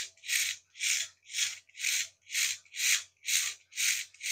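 Even, rhythmic rasping of plastic parts rubbing as they are worked by hand, about two strokes a second.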